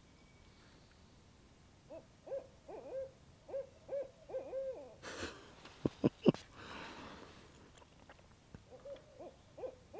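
An owl hooting: a quick run of short hoots starting about two seconds in, and another run near the end. A few sharp clicks come in between, about six seconds in.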